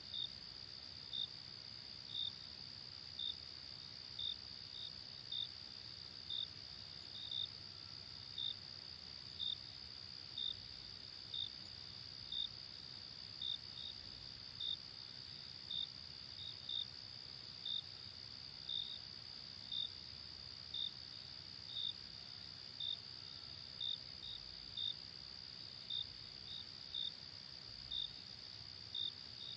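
Crickets chirping on a summer night: a steady high trilling chorus, with one louder cricket giving short chirps about once a second.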